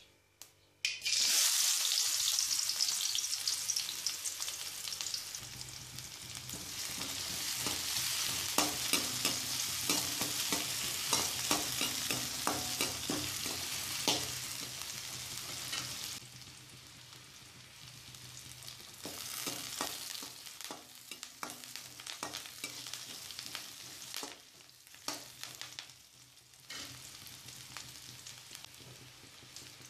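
Chopped onions frying in hot oil in a stone-coated kadai: a loud sizzle starts suddenly about a second in, with a steel ladle clicking and scraping against the pan as they are stirred. The sizzle eases off to a quieter level about halfway through.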